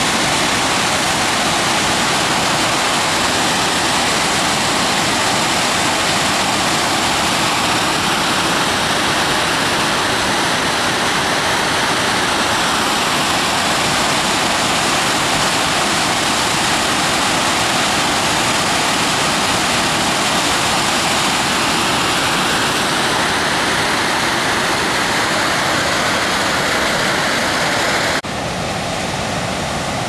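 Whitewater rapids rushing steadily over rock. Near the end the sound cuts abruptly to a slightly quieter, duller rush.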